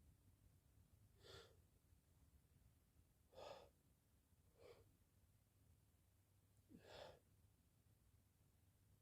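Four faint, short breaths spaced a second or two apart, from a person about to sneeze.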